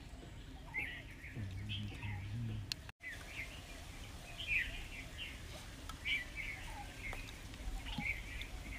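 Small birds chirping repeatedly in the background, short high calls coming every half second or so. A brief low hum sounds about one and a half seconds in.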